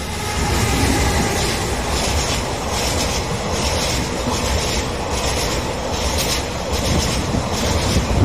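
An EF210 electric freight locomotive passes close by, followed by a string of Taki 1000 gasoline tank cars. The train runs loud and steady, with the wheels clacking in a regular beat about twice a second.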